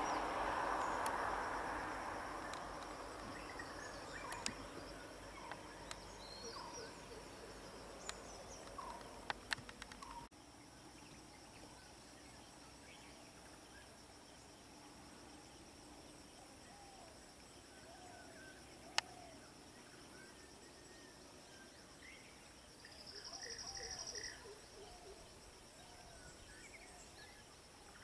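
Outdoor bush ambience: a steady high drone of insects with scattered short bird chirps and a few sharp clicks. A vehicle's rushing noise fades out over the first few seconds. About 23 seconds in, a louder insect buzz lasts about a second.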